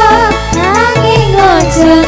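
Live Javanese band music, loud: a gliding keyboard-led melody over bass and hand drums.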